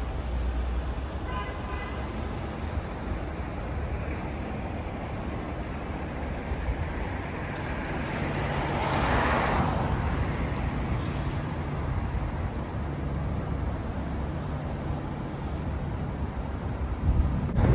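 Street traffic noise: a steady rumble of road vehicles, with one vehicle passing close and swelling louder about nine seconds in. A thin high whine rises slowly through the second half.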